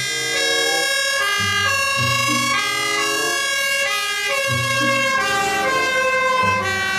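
German fire engine's two-tone siren wailing as the ladder truck drives by on an emergency run, its tones switching back and forth between pitches.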